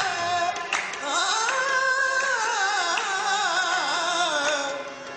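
Live qawwali: a male voice sings a long, wavering melismatic line over harmonium, starting about a second in.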